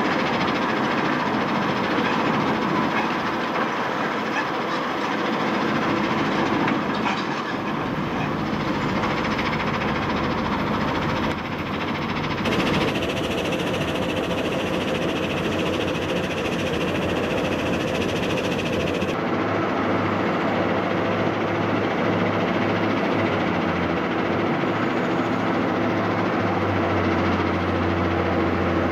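Steady din of heavy quarry machinery: the diesel engines of a Komatsu PC 350 excavator and a CAT wheel loader over the rattle of a mobile crushing and screening plant. The sound changes abruptly twice, at cuts, and a low engine hum grows stronger near the end as the loader raises its bucket.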